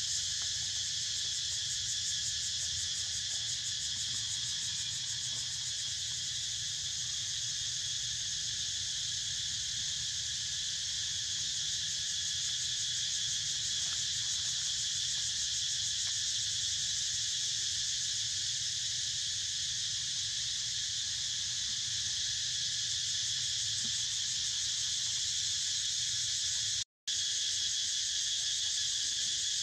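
Steady, shrill chorus of insects buzzing on and on with a fast even pulse; the sound cuts out for a split second near the end.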